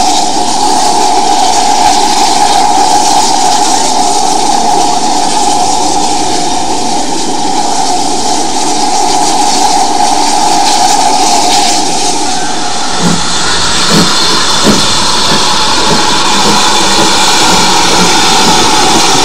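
GWR 5600 class 0-6-2 tank locomotive No. 5619 standing with steam hissing steadily, a steady tone under the hiss. About two-thirds through the sound changes and there are three heavy thuds.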